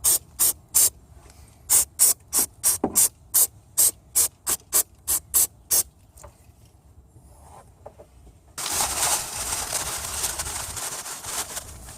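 Aerosol brake cleaner spraying: a quick run of short spurts over the first six seconds, then one continuous spray of about three seconds near the end.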